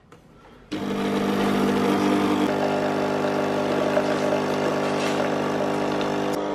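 Krups Nescafé Dolce Gusto capsule coffee machine's pump starting suddenly about a second in and running with a steady hum as it brews coffee into a glass.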